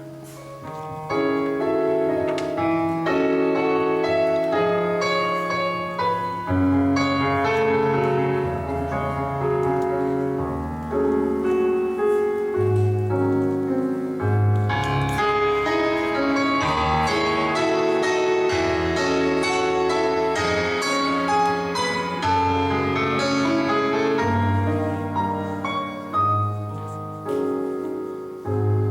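Piano playing an instrumental passage of chords over low bass notes, the accompaniment to a song before the voice comes in.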